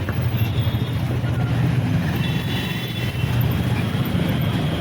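TVS Apache RTR motorcycle's single-cylinder engine running steadily while riding in town traffic, with road and wind noise.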